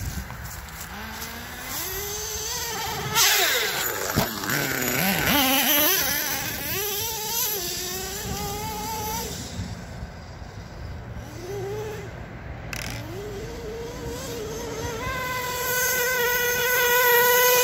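Red Cat Earthquake 3.5 RC monster truck's small nitro engine revving up and down in repeated bursts as it is driven, then held at high revs for a few seconds near the end. The owner says the engine still needs tuning.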